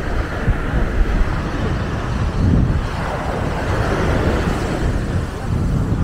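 Wind buffeting the microphone over surf washing up the beach, with a swell of noise from a wave about halfway through.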